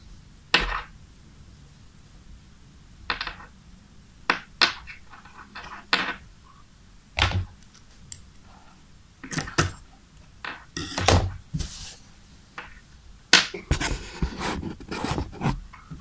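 Scissors snipping off stray wire strands at the frayed end of a MagSafe 2 charger cable: about a dozen separate sharp snips, a second or so apart, growing closer together with some handling rustle near the end.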